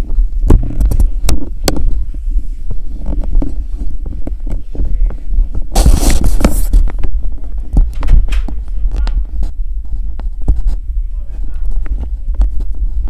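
Handling noise from a camera being moved about: a steady deep hum with frequent knocks and rubbing on the microphone, and a short burst of rustling hiss about six seconds in.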